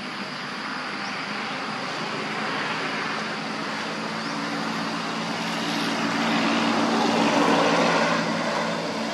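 Engine noise of something passing by: a steady drone with a low hum that swells gradually, is loudest near the end, then begins to ease off.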